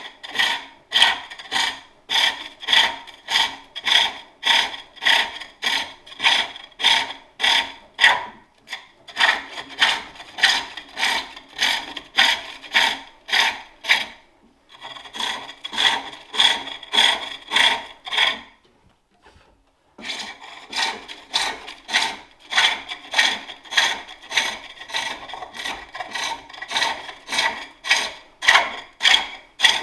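Turning tool cutting a wooden bowl blank on a spring pole lathe, a scraping cut with each treadle stroke at about two a second. The strokes stop briefly about nine and fourteen seconds in, and for about a second and a half near the two-thirds mark.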